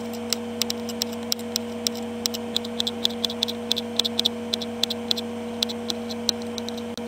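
Kitchen knife dicing green pepper on a plastic cutting board: quick, irregular taps of the blade on the board, several a second, over a steady background hum.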